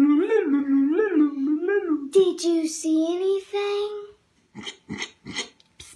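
A child's voice singing a wavering "ooh" that swoops up and down about every second, then holds a steadier note and stops about four seconds in. Four short, sharp sounds follow near the end.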